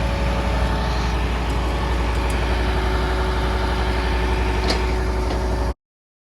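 Concrete mixer truck's diesel engine running steadily at a low drone, cutting off suddenly near the end.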